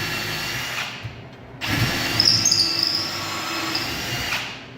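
Power drill boring a hole into a wooden ceiling joist, run in two bursts: the first stops about a second in, the second starts shortly after and runs until near the end.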